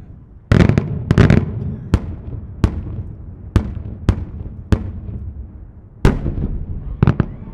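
8-inch Maltese-style multi-break cylinder firework shell going off in the air: a dense crackling volley of small reports about half a second in, then five loud single bangs at roughly even spacing (its timed reports), then another heavy bang and a quick double bang near the end. Each bang trails off in a low rumbling echo.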